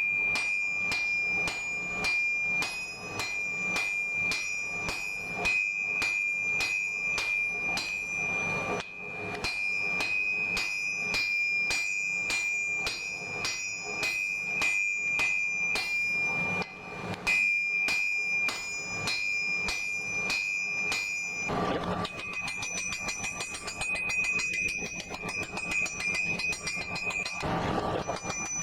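Blacksmith's hammer striking steel on an anvil in a steady rhythm of about three blows a second, each blow leaving the anvil ringing. Near the end the blows turn lighter and closer together.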